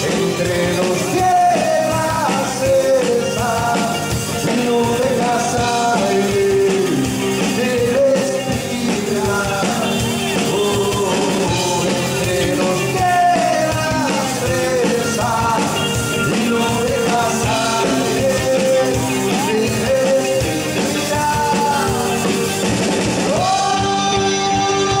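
Live rock band playing: several voices singing over electric guitar, bass guitar and drum kit. Near the end the singing stops and a held chord rings on.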